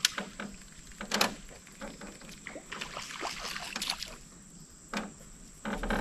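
Sharp knocks and clatter from an aluminium johnboat and fishing tackle, with a stretch of rustling noise in the middle, as a lure snagged in overhanging trees is tugged free.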